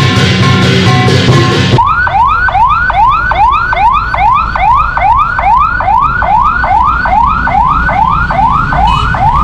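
Music with drums for the first two seconds, then a vehicle's roof siren sounding a fast yelp: a rising tone that climbs and drops back about two and a half times a second, over street traffic.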